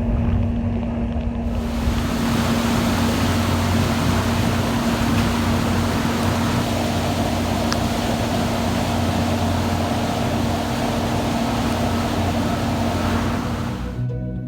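Tour boat's engine droning steadily. A loud rushing noise of wind and water comes in about a second and a half in and stops shortly before the end, where music starts.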